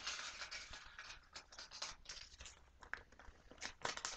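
Paper name slips rustling and crinkling as a hand picks through them in a bowl held aloft. Faint, irregular rustles and scratches.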